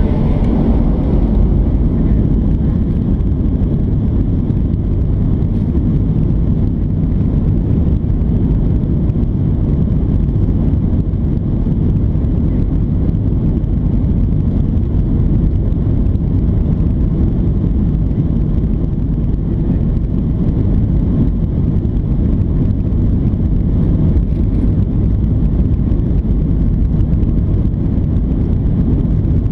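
Cabin noise of a Boeing 737-800 taxiing, its CFM56 engines running at low power: a steady low rumble.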